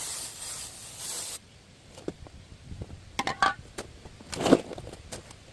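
Aerosol can of brake cleaner spraying in a steady hiss that cuts off about a second and a half in. Then light metal clinks and, near the end, a single dull knock that is the loudest sound.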